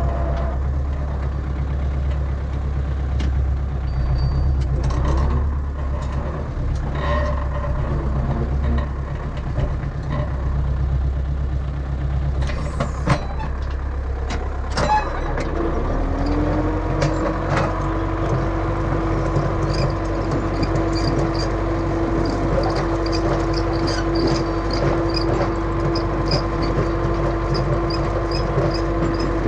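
Belarus MTZ-80 tractor's diesel engine running steadily under load while pulling a disc harrow, with knocks and rattles from the implement working the soil. About halfway through, the engine note rises and then holds at a higher steady pitch.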